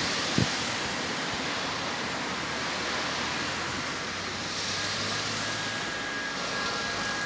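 Container freight train's wagons rolling past: a steady rushing noise of wheels on rail. A thin, steady high squeal comes in about five seconds in.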